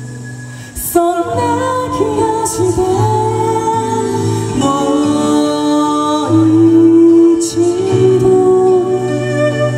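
Live music: a slow song sung over steady instrumental accompaniment, the melody coming in about a second in with long held notes.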